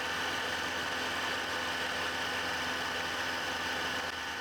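Milling head running steadily, a facing mill surfacing the fixture plate, with a steady whir and a faint high tone.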